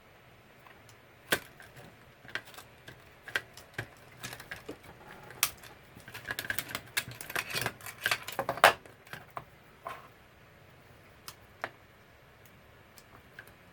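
Sharp clicks and clattering of small hard parts as an old label machine is taken apart by hand: a few isolated clicks at first, a busy run of clatter in the middle ending in one loud snap, then a few more scattered clicks.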